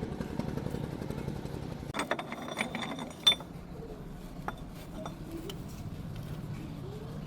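A quick run of sharp metallic clicks and clinks starting about two seconds in, the loudest near the middle, over a steady low mechanical hum; typical of tools and metal parts being handled during tractor gearbox repair.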